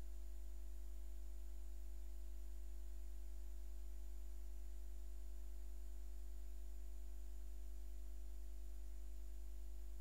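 A faint, steady low hum with a few faint steady tones above it, unchanging throughout; no other sound.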